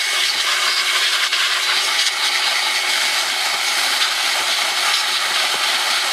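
Steady hiss of blown air clearing debris from around a small engine's carburetor and air-filter housing, with a faint steady high tone running under it.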